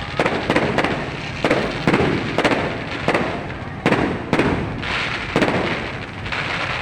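Aerial fireworks going off in quick succession: a string of loud bangs and crackles, each followed by a rumbling echo.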